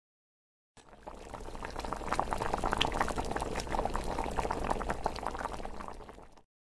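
Hot oil bubbling and crackling as in deep-frying, a dense sizzle that fades in about a second in and fades out near the end.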